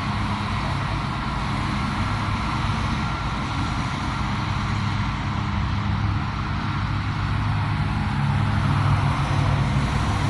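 A motor vehicle's engine running steadily, a low hum with an even noise above it.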